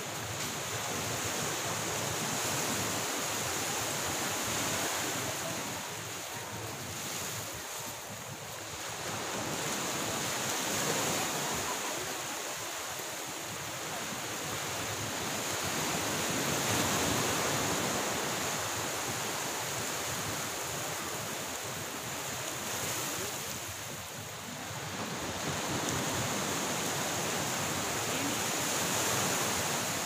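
Waves washing in, a steady wash of noise that swells and eases every several seconds, with a steady high-pitched hiss above it.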